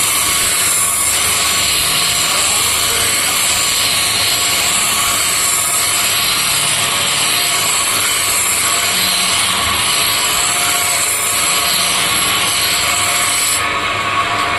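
Power grinder sharpening a scissors blade: a steady motor hum with a loud, high grinding hiss of metal on the abrasive wheel, which stops about a second before the end while the motor keeps running.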